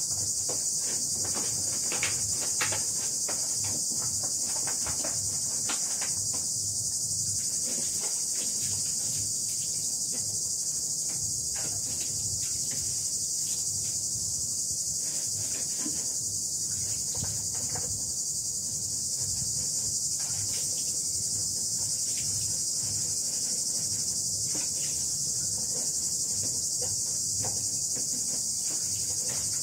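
Steady high-pitched chorus of insects, with the quick wet clicks of cats lapping and chewing soup from a ceramic bowl close by.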